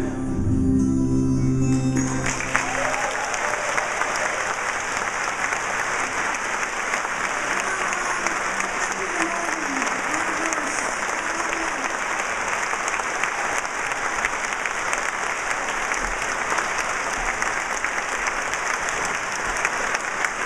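The band's last held chord of voices and acoustic instruments dies away about two seconds in, and a large audience breaks into steady applause, with a few voices cheering.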